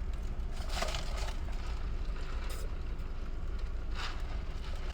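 Steady low rumble of an idling car heard inside the cabin, with two brief soft rustles, one about a second in and one near the end.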